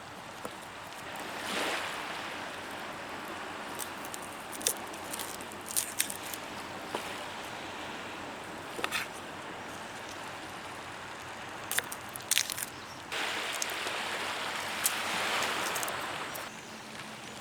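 Small waves washing onto the beach, swelling up twice, with scattered sharp clicks and taps over the top.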